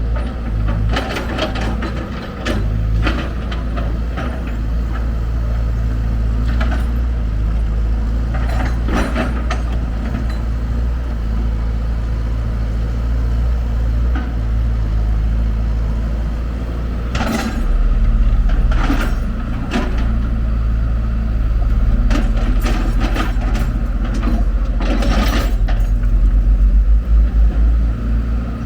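Heavy diesel engine of a wheel excavator running steadily with a deep rumble, with scattered clanks and knocks from the machine working.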